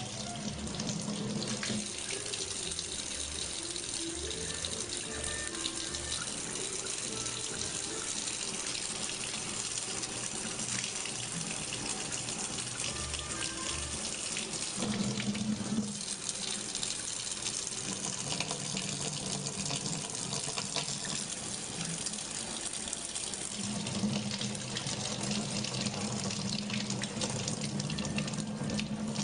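Water running steadily from a kitchen faucet into the sink.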